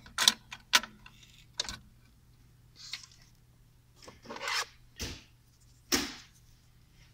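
Several sharp metal clicks in the first two seconds, then a few short scraping and rubbing sounds: a CPU being seated in its motherboard socket and the socket's metal load plate and retention lever being closed down over it.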